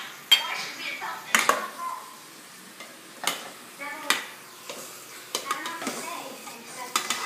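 Metal ladle stirring chicken pieces in a stainless-steel pot, clanking sharply against the pot about five times, over a low sizzle of the meat cooking.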